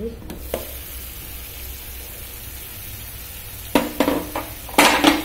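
Tomato, onion and red chilli masala sizzling in oil in a kadhai as its glass lid comes off. Near the end a wooden spatula stirs and scrapes the pan in a few loud strokes.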